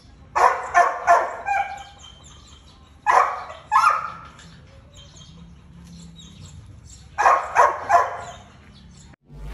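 Dog barking in three short volleys of two or three sharp barks each: one about half a second in, one at about three seconds, and one near the end.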